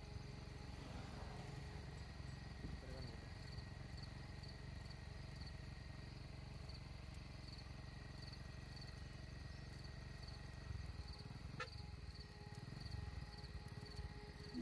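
Faint insect chirping, an even pulse of about one and a half chirps a second, over a low steady rumble, with a single brief click about twelve seconds in.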